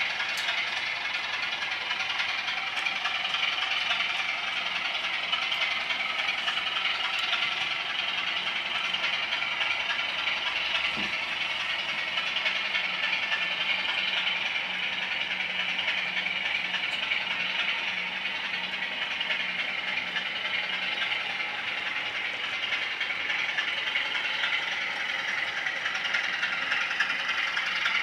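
Model trains running on the layout's track: a steady, even rattle of small wheels and motors that holds throughout.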